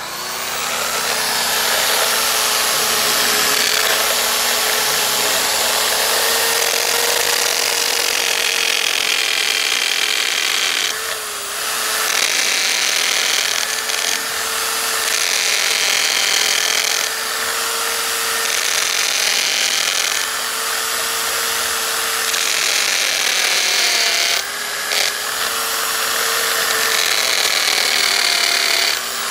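Power drill with a masonry bit boring into a stabilized compressed earth block wall, its motor running at a steady pitch. Twice it briefly eases off as the bit is shifted to a new hole.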